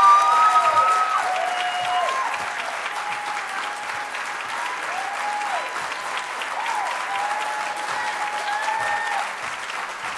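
Audience applauding, a dense clatter of clapping that is loudest at the start, with whoops and cheers from several voices rising above it throughout.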